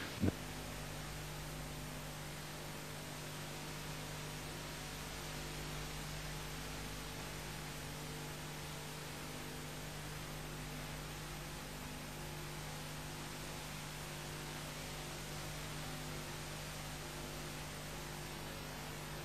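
Steady electrical hum with hiss, holding one low tone and a few fainter higher ones; a single brief click comes just after the start.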